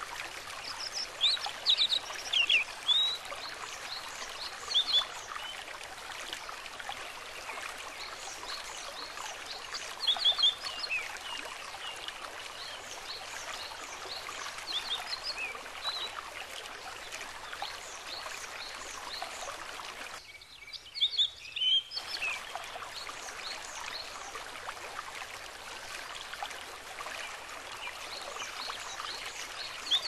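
Steady babbling stream with small birds chirping in short quick bursts every few seconds. The water sound drops out briefly about twenty seconds in while a bird goes on chirping.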